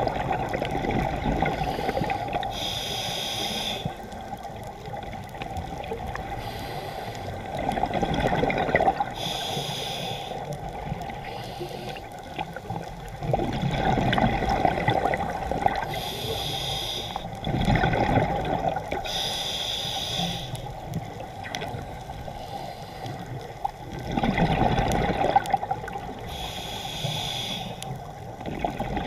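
Scuba diver breathing through a regulator underwater: short hisses of inhalation alternate with bursts of bubbling exhaled air, about five breaths in all.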